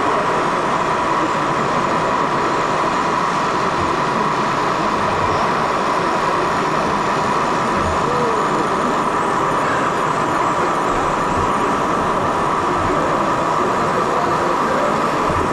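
Radio-controlled model tractors running, giving a steady, unchanging whirring hum over a background of hall noise.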